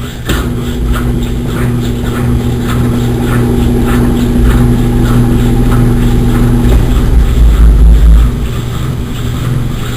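Consul Maré Super 10 kg washing machine running: a steady motor hum with a regular swish about twice a second. Near seven seconds one hum tone stops and a low rumble rises.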